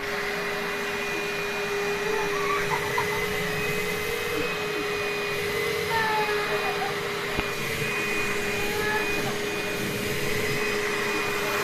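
Vacuum cleaner running steadily: a constant motor whine over the rush of air.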